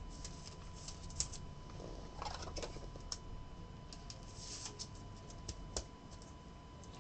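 Faint plastic clicks and rustles as a trading card in a soft penny sleeve is slid into a rigid plastic toploader, with the sharpest click about a second in. A faint steady tone hums underneath.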